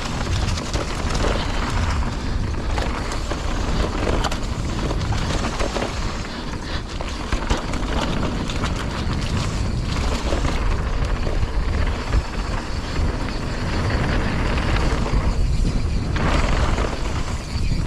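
Mountain bike rattling and clattering down a rough, bumpy trail, with steady tyre noise and many short knocks from the frame and chain. Wind buffets the helmet-camera microphone in a steady low rumble.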